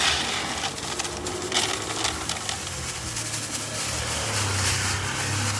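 Outdoor street noise: a broad rushing sound, with a low motor-vehicle engine hum building in the second half as a car approaches.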